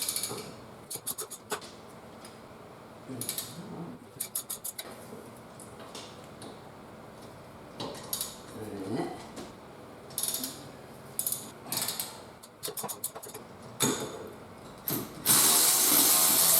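Ratchet wrench with an 8 mm Allen socket backing out hub bolts, in several short runs of rapid clicks. Near the end a power tool runs loudly and steadily for about two seconds.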